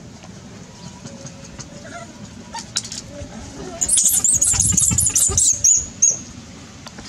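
Infant long-tailed macaque crying loudly in high, rapidly wavering shrieks for about two seconds, starting a little past the middle, as an adult grabs and drags it: a distress scream.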